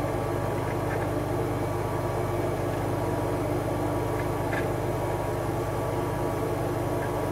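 Sanford Model MG surface grinder running under its own power: an older Craftsman 3/4 hp, 3450 RPM electric motor turning the grinding spindle through a V-belt and cast iron pulleys. It makes a steady, even hum and runs smoothly.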